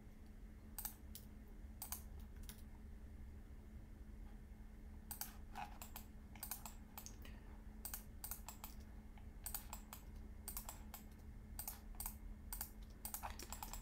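Computer keyboard and mouse clicks: a few scattered taps in the first three seconds, then a quicker, irregular run of clicks from about five seconds in, over a faint steady hum.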